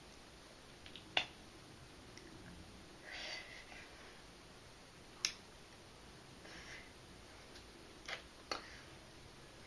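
Four sharp clicks, such as finger snaps or taps: one about a second in, one about five seconds in, and two close together near the end. A soft, short hiss comes about three seconds in, over faint room tone.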